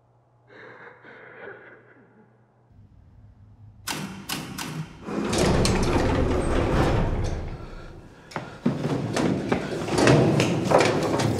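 Doors of an old lift rattling and banging. After a nearly quiet start, a loud clatter of knocks and scraping sets in about four seconds in, followed by a quick run of sharp knocks near the end.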